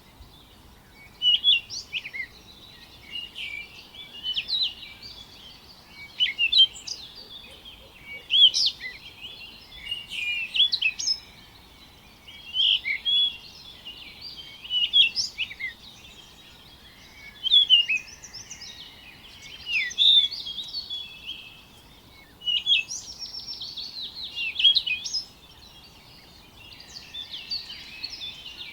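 Songbirds chirping: quick, high chirps and twittering phrases in bursts every couple of seconds with short gaps between them, over a faint steady hiss of background noise.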